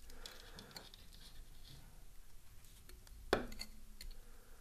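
Faint rubbing and handling of a small quadcopter frame in the hands, with one sharp click a little over three seconds in.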